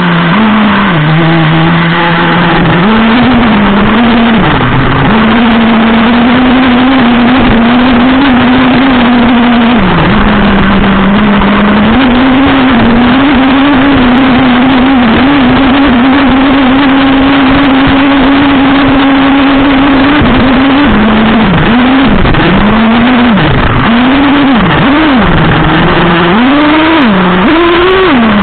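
Traxxas Revo 3.3's small two-stroke nitro engine running loud and close, heard from a camera mounted on the truck. It holds a fairly steady pitch for long stretches, then from about two-thirds through it revs up and down repeatedly, climbing to a higher pitch near the end.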